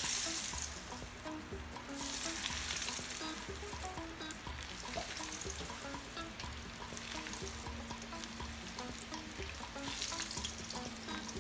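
Batter-coated peanuts deep-frying in oil that is too hot, the oil sizzling steadily while a slotted spoon stirs and scoops through them.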